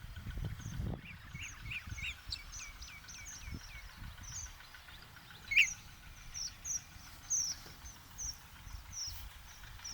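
Wild birds calling in a wetland: a steady run of short, high chirps repeating every fraction of a second, with one louder call about halfway through.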